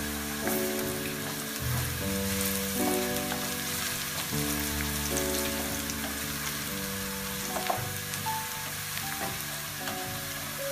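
Sliced onions frying in hot oil in a nonstick frying pan: a steady sizzle, stirred with a wooden spatula. Background music with held notes plays underneath.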